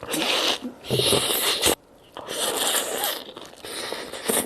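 Four bursts of crunching and crackling, close to the microphone, from biting into and chewing crisp food: a flatbread sandwich stuffed with potato slices.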